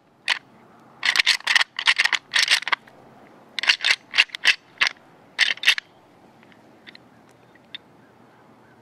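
Rattling horns: a pair of deer antlers clashed and ground together in several bursts of rapid clattering clicks, imitating two bucks fighting in order to draw in a rutting buck. The rattling stops after about six seconds, leaving only a few faint ticks.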